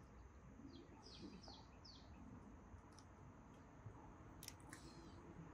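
Faint bird chirps: a quick run of four short falling chirps, then a short trill near the end, over near-silent outdoor background with a faint click or two.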